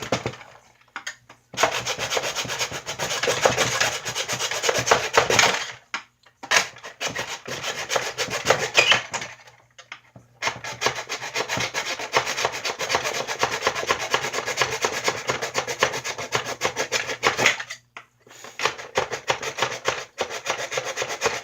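A saw cutting through plastic with rapid scraping strokes, in four runs with short pauses between, taking off two round plastic pieces.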